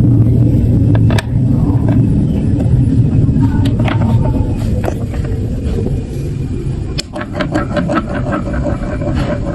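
Marbles rolling down a plastic block marble run: a steady rolling rumble with scattered clicks and clacks, growing into a rapid clatter of many small knocks in the last few seconds.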